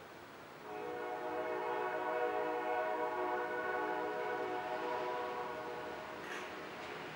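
A horn sounds one long, steady blast of several tones together, starting under a second in, holding for about five seconds and fading near the end.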